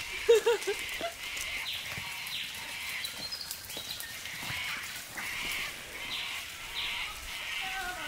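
A goat bleats briefly just after the start, followed by a series of high, short chirping calls that repeat about once a second, with light crackles of hooves and feet on leaf litter.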